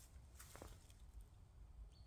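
Near silence: faint low background rumble, with one soft click about half a second in.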